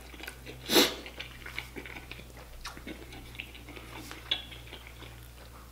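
Close-miked chewing of seafood-boil food, with small wet mouth clicks throughout and one louder smack about a second in.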